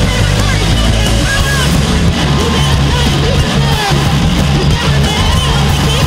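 Punk band playing live at full volume: a dense wall of distorted guitar, bass and drums with a singer's shouted vocals on top.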